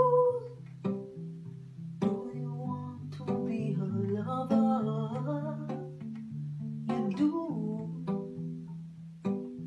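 Acoustic guitar playing an instrumental passage, chords and picked notes struck and left ringing. A held sung note fades out in the first half second.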